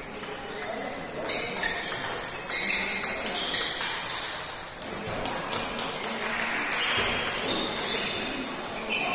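Table tennis balls clicking off bats and tables in overlapping rallies at several tables, the ticks coming irregularly and in quick succession.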